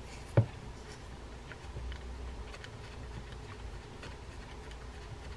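Small metal clicks and taps of a Quantum Iron 410 baitcasting reel's case and side plate being fitted together by hand as the thumb screws are worked into place, with one sharper tap about half a second in.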